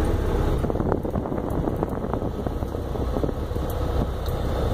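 Steady low rumble of a semi-truck's diesel engine and road noise, heard inside the cab.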